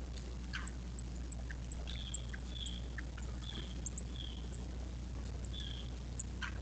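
Wild birds calling: a run of short, high chirps repeated about every half second, with a couple of quick downward-sweeping calls, over a steady low hum.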